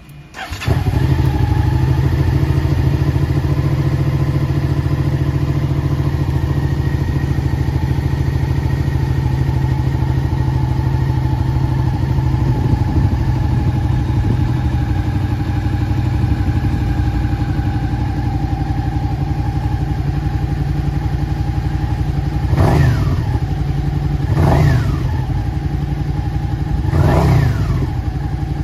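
Suzuki SV650X's 645 cc V-twin engine, fitted with an aftermarket muffler, starting up about half a second in and then idling steadily. Near the end the throttle is blipped three times, each rev rising and falling back to idle.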